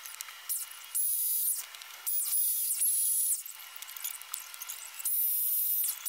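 Craftsman corded electric chainsaw revving in about six short bursts, each rising in pitch as the motor spins up and falling as it stops. The sound is sped up, so the motor comes out as a thin, high-pitched whine.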